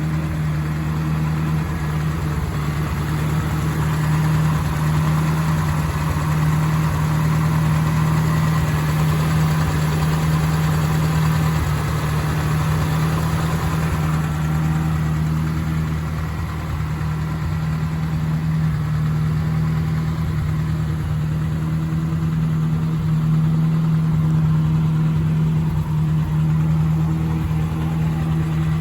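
Toyota Hilux YN106 pickup's engine idling steadily.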